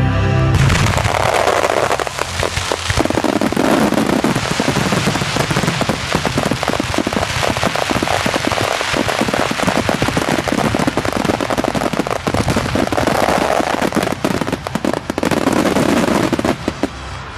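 Fireworks crackling in a dense, continuous barrage of rapid pops and bangs.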